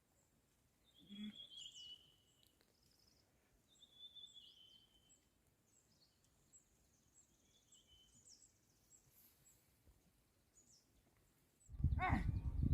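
Faint songbirds calling: short whistled phrases that fall in pitch, repeated a few times, with thin high chirps between them. Near the end a much louder, low-pitched sound cuts in.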